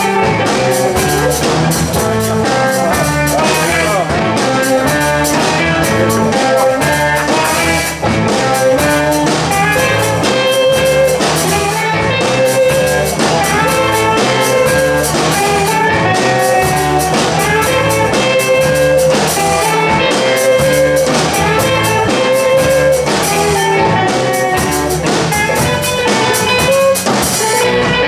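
Live band playing rock music on drum kits and electric guitars, loud and continuous, with a steady drum beat.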